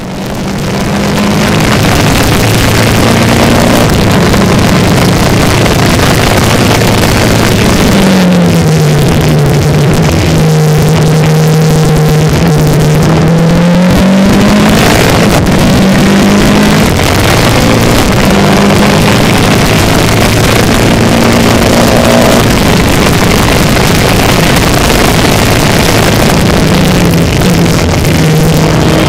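Formula Renault 2.0 race car's 2.0-litre four-cylinder engine at racing speed, heard from the cockpit: the pitch climbs and drops back in steps with quick gear changes, falls away under braking about eight seconds in, holds low through a slow corner, then climbs steeply again as the car accelerates out and shifts up.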